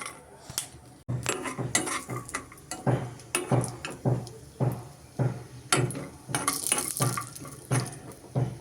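Kitchen utensils knocking and clinking against dishes in a repeated rhythm, about two strokes a second.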